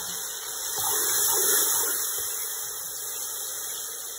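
Garlic paste sizzling in hot oil in a pot: a steady frying hiss that grows louder about a second in, then slowly eases off.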